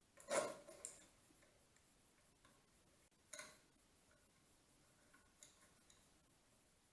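A few light clicks and knocks on a quiet background, the loudest about half a second in and another about three seconds in, with fainter ticks later.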